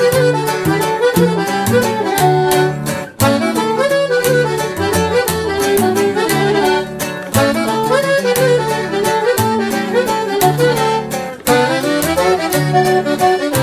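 Instrumental norteño redova from a live ensemble. Button accordion and saxophone carry the melody over bajo quinto strumming and plucked tololoche (upright bass) keeping a steady beat. The band breaks off for an instant twice.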